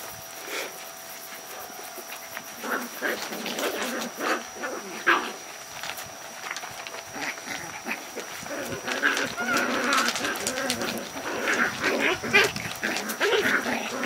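Australian Terrier puppies playing, with many short yips and whimpers that come thicker and louder in the second half.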